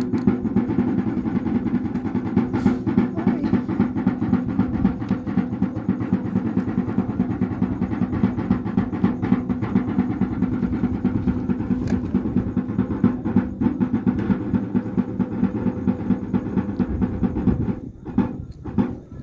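Wayuu kasha drum beaten rapidly with sticks in a continuous roll for the yonna dance, stopping about a second before the end and leaving a few separate strikes.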